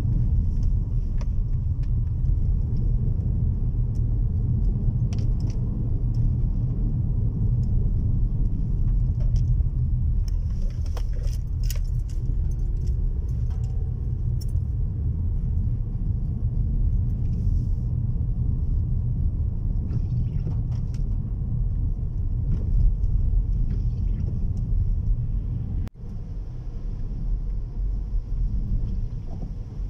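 Steady low road and engine rumble inside a moving car's cabin, its tyres running on wet road. A scatter of light clicks and rattles comes around the middle, and the sound cuts out for an instant near the end.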